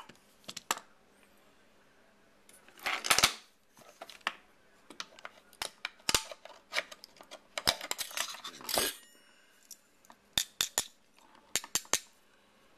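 Small metal hard-drive parts being worked with a screwdriver and handled: scattered sharp clicks and clinks with short metallic scrapes, the loudest scrape about three seconds in and a busy run of clicks in the middle.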